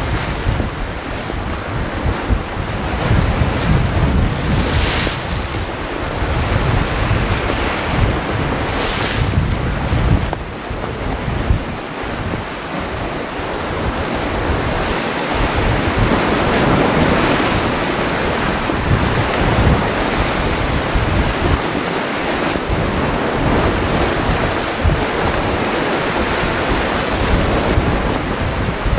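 Rough sea surging and breaking against rocks, with strong wind rumbling on the microphone. Two brighter, hissing wave surges stand out about five and nine seconds in.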